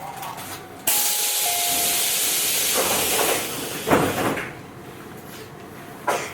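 Compressed air from a Tobu 8000 series electric train's air system hissing, which is typical of a stop at a station. The hiss starts suddenly about a second in, lasts about three and a half seconds with a louder surge near the end, then dies away. A short sharp sound follows near the end.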